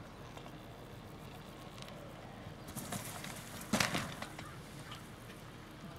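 Hang glider touching down on grass: its wheeled control bar bumps and rolls through the grass in a rustling, clattering burst about three to four seconds in, loudest just before the glider comes to rest on its nose.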